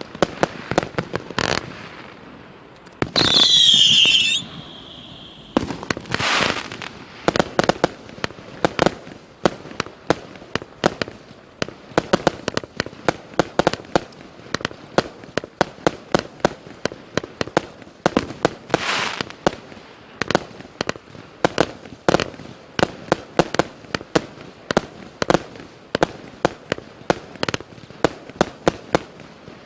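A 200-shot, 0.8-inch firework cake firing: a rapid string of sharp launch bangs and bursts, several a second. There is a loud whistling screech about three seconds in, and hissing crackle bursts near six and nineteen seconds.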